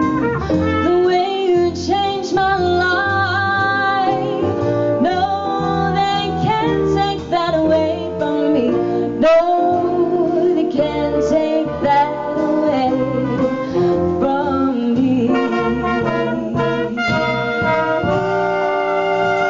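Live jazz band with brass playing over a walking bass, finishing on a long held chord near the end.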